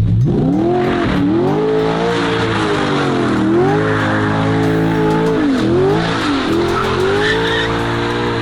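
Lamborghini engine revving up and down repeatedly while its tyres squeal through a donut, the revs rising and falling several times.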